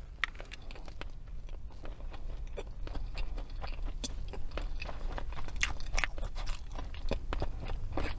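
Close-miked chewing of crunchy food, with many small irregular crunches.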